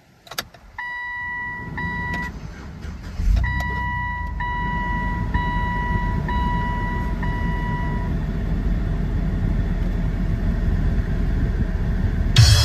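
2012 GMC Sierra 1500 pickup's engine cranking and catching about three seconds in, then idling steadily. A dashboard warning chime rings repeatedly for the first eight seconds or so.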